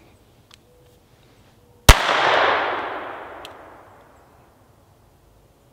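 A single unsuppressed shot from a Beretta 21A Bobcat .22 LR pistol firing Aguila Super Extra subsonic ammunition: a sharp crack about two seconds in, followed by a long echo that dies away over about two seconds. A phone meter reads it at 106 dB.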